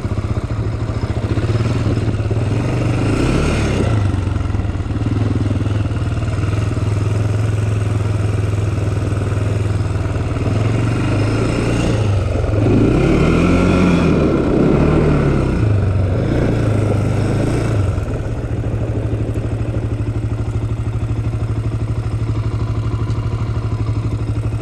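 Honda 400 sport quad's single-cylinder four-stroke engine running at low throttle while riding. About halfway through it is revved up and down several times, then it settles back to a steady low speed near the end.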